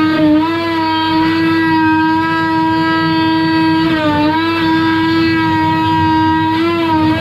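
Oscillating multi-tool running steadily while cutting through a fibreglass boat roof, a high, even buzz. Its pitch sags briefly three times as the blade is pressed in and bites.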